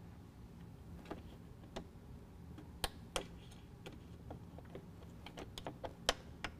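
Irregular sharp plastic clicks and ticks as two-piece plastic push pins are pried out of the plastic radiator-support cover with a pry tool, a couple of louder snaps about three seconds in.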